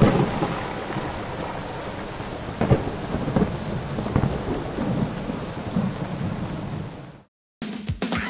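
Thunderstorm sound effect: steady rain with rolling thunder and a louder clap about three seconds in. It fades out about seven seconds in, and after a brief silence music begins.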